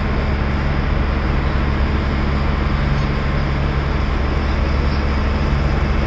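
A passenger launch's engine running steadily: a constant low drone with an even rushing noise over it.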